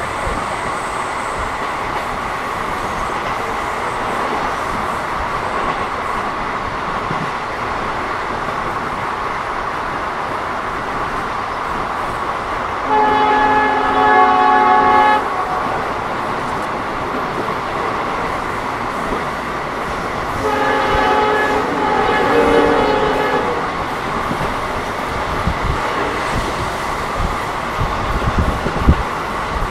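Steady running noise of an Indian Railways ICF passenger coach rolling along the track. The hauling WDP4D diesel locomotive's horn sounds twice, for about two seconds from 13 seconds in and for about three seconds from 21 seconds in. A few low wheel thuds over rail joints come near the end.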